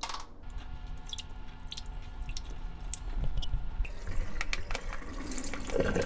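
Water dripping and splashing in a sink basin as raw oysters are lifted out of their salted wash water into a metal strainer. Near the end the splashing grows louder as the oysters and water are tipped from the basin into the strainer.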